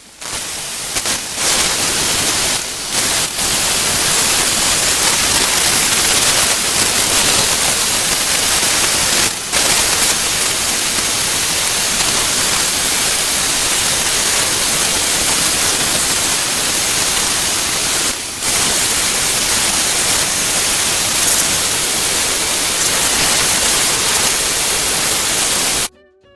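Pressure washer spraying: a loud, steady hiss of the water jet, dipping briefly a few times, as it blasts caked mud off a skid steer.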